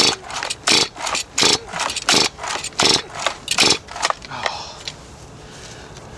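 Small STIHL two-stroke chainsaw being pull-started: about six quick yanks on the recoil starter cord, roughly two-thirds of a second apart, then a pause, with the engine turning over but not catching. It has just had its carburettor redone and the tank had been empty, so fuel may not yet have fed through.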